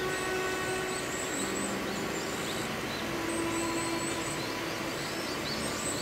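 Soft background music with long held notes that change every second or two, over a steady outdoor hiss, with a few faint high chirps around the middle.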